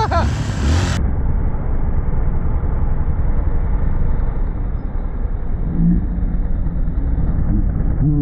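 Honda CRF150L's single-cylinder four-stroke engine running at low speed on a gravel trail, heard through an on-bike camera microphone with wind and road noise. Short rises in the engine note come near the end.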